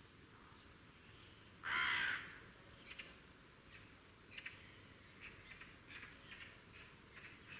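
Bird calls: one loud, harsh call about half a second long nearly two seconds in, followed by a string of short, fainter calls every half second or so.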